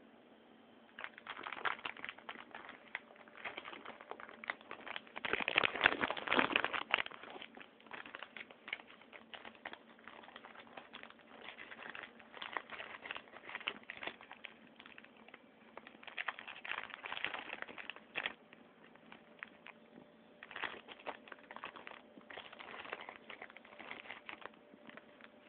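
Plastic cookie packet crinkling as it is handled and opened, in several spells of dense crackling, loudest about six seconds in.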